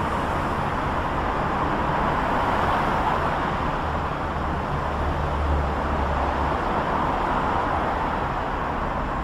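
Steady road-traffic noise: a continuous hiss of passing vehicles with a low engine rumble underneath, and no distinct impact or horn.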